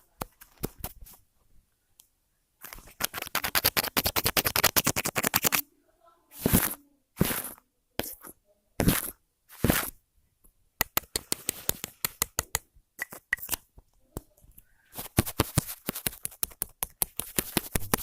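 Close-miked ASMR trigger sounds: fast trains of small clicks and taps, with four short scratchy rubbing sounds in the middle.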